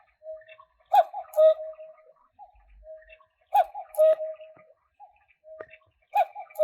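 Battery cuckoo clock calling three times, about two and a half seconds apart. Each call is a click followed by the two-note falling "cuck-oo".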